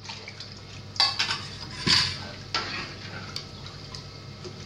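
Steel spoon and ladle clinking and scraping against a steel bowl and an iron kadhai as watery pakora-batter mix is poured in and stirred, with a few sharp metal clinks about one and two seconds in.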